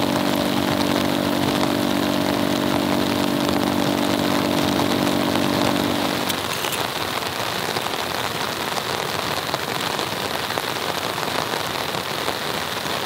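Heavy rain falling steadily, with the steady hum of a motor running alongside it until it cuts off about six seconds in.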